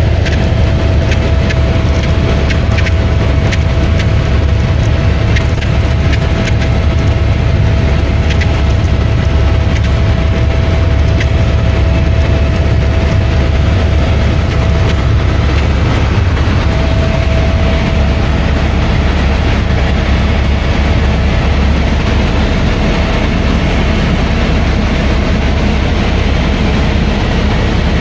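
Helicopter cabin noise in flight: a loud, steady deep rumble of the rotor and engine with a constant high whine above it.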